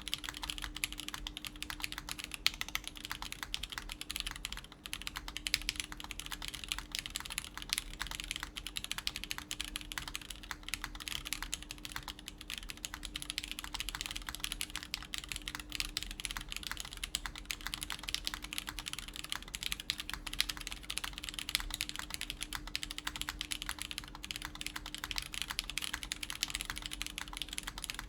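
Continuous typing on a mechanical keyboard with lubed Everglide Tourmaline Blue switches, a polycarbonate plate and GMK keycaps: an unbroken, even run of key clacks.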